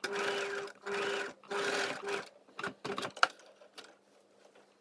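Bernina 1008 domestic sewing machine stitching in short bursts: four brief runs of a few stitches each, stopping and starting, during understitching. Then a few sharp clicks and knocks as the work is handled and taken out from the machine.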